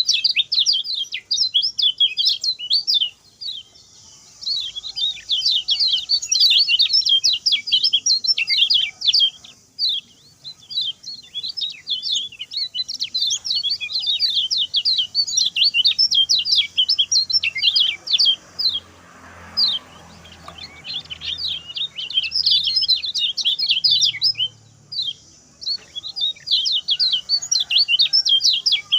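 Common iora (kecial kuning) singing a fast, high-pitched run of short chirping notes in dense bursts, with a few brief breaks. This is its quick 'speed pendek' song.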